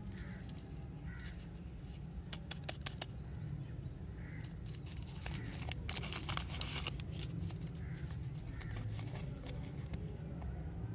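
Lollipop wrapper of printed film and clear plastic crinkling as it is peeled off by hand: scattered crackles, then a dense run of crinkling about halfway through, over a steady low rumble.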